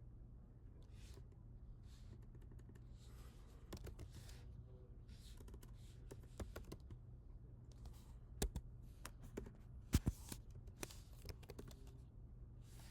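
Computer keyboard typing in short irregular runs of key presses, with a couple of louder keystrokes in the middle, over a steady low hum.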